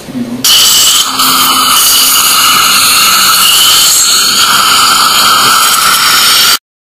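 Loud, steady hiss of dental equipment running in the mouth during oral surgery, starting about half a second in and cutting off abruptly near the end.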